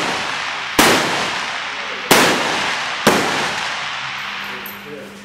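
Three rifle shots from benchrest rifles along the firing line, about a second apart, each sharp crack followed by a long echoing decay.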